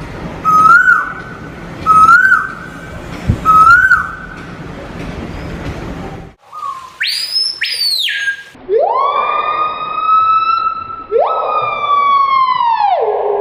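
A run of different birds' calls. First come three short rising whistled notes about two seconds apart over background noise. Then, after a break, a few high whistled glides, followed by two long, loud wailing calls that drop in pitch at the end.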